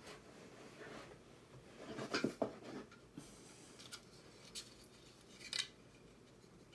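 Small plastic and metal parts of a robot kit being handled during assembly: scattered clicks, taps and rustles, the loudest cluster about two seconds in.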